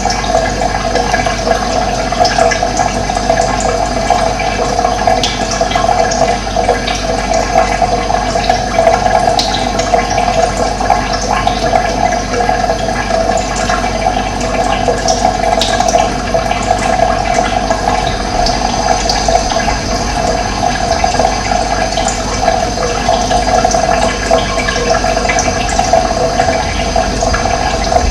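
Running water flowing steadily, with faint scattered bird chirps above it.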